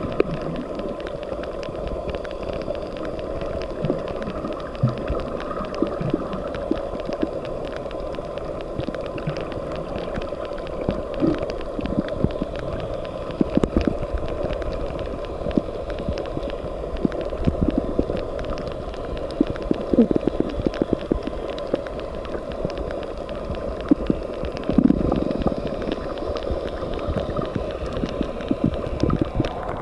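Muffled underwater sound picked up by a snorkeler's camera: water gurgling and sloshing over a steady hum, with irregular small knocks and clicks.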